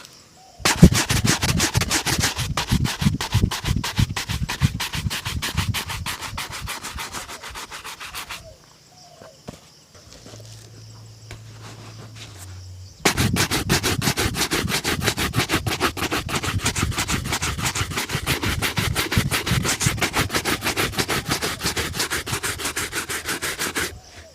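A shoe being buffed by hand with rapid back-and-forth strokes, in two long runs with a pause of about four seconds between them. The first run fades off before the pause.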